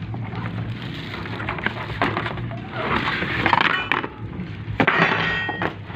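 Cardboard packaging being handled: rustling and scraping with a few knocks, loudest about three seconds in and again about five seconds in, as the boxed floodlight is slid out.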